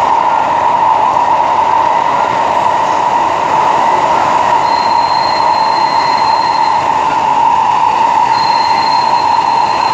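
SMRT Kawasaki-Sifang C151A metro train running, a steady loud rolling noise, with a faint thin high tone coming in twice for about two seconds each.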